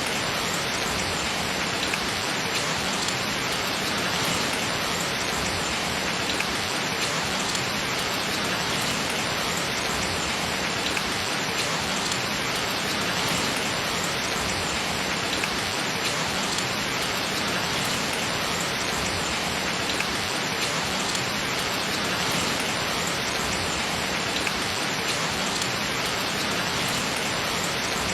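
Gentle rain falling steadily: an even hiss of drops, with faint scattered taps of individual drops.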